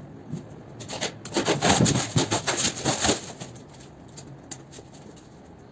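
A large stiff white board being pulled out of a cardboard box, rubbing and scraping against the box's sides in a dense run of strokes for about two seconds, then handled more quietly with a few light taps.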